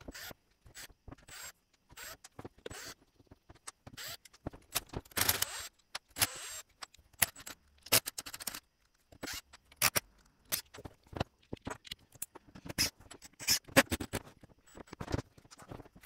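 Plastic housing and small metal parts of a cordless impact wrench being handled and taken apart: irregular clicks, taps and short scrapes, with a longer scrape about five seconds in.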